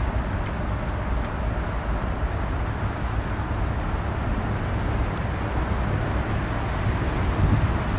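Steady outdoor background rumble with a hiss above it and no distinct events, a little stronger in the low end near the end.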